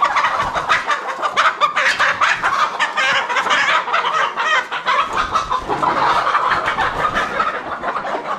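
A pen of live chickens clucking, many short calls overlapping without a break.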